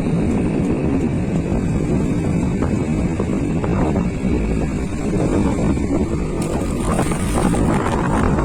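Motorbike running steadily while being ridden, with road noise.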